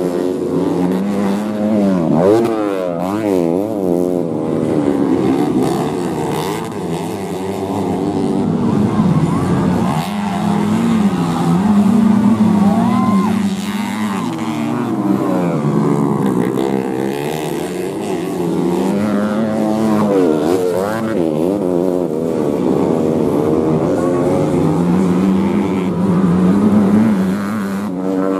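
Several modified underbone (bebek) racing motorcycles revving hard, their engine notes rising and falling and overlapping as they accelerate and shift through the gears.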